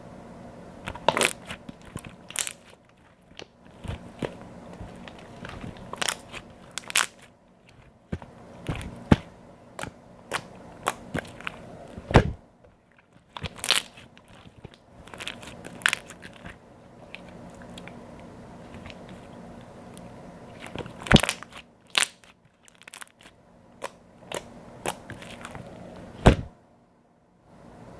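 Clear slime being pressed and squeezed by hand, giving irregular sharp pops and crackling clicks as trapped air bursts out, some of them loud, with quieter stretches in between.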